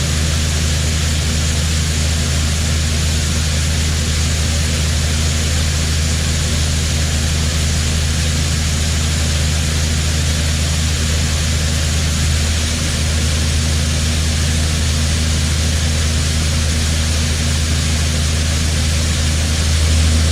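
John Deere 9500 combine running steadily at working speed: a loud, even diesel hum with a wide band of machine noise, easing slightly about twelve seconds in.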